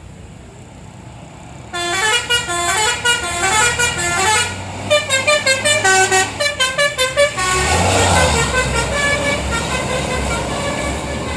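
A tour bus's Basuri 'telolet' musical multi-tone horn plays a quick tune of short stepped notes, starting about two seconds in and pausing briefly midway. Near the end the bus's engine grows louder under the last fainter notes.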